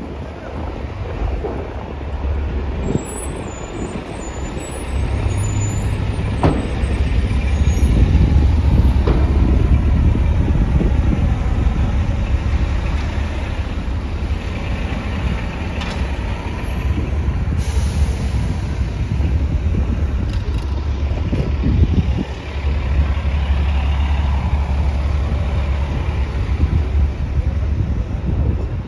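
City street traffic with the low engine rumble of a heavy vehicle, such as a bus or truck, running close by for most of the stretch. A short hiss comes about two-thirds of the way through.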